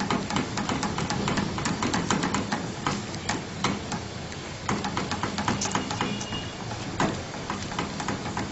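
A spatula scraping and tapping against an aluminium frying pan while thick, simmering milk is stirred fast: a busy run of irregular ticks and scrapes.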